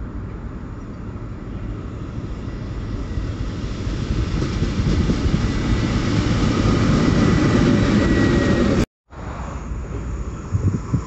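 Train passing, its rumble and rail noise growing louder over several seconds with a faint high whine. The sound cuts out abruptly near the end, then train noise resumes.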